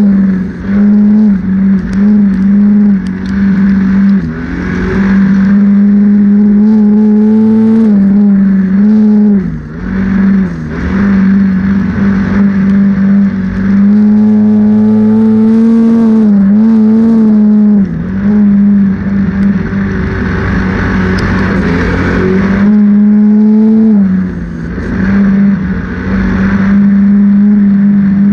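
Ford Focus midget race car's four-cylinder engine at racing speed, heard onboard: a loud, steady high-revving note that drops briefly several times as the revs come down and then climbs back.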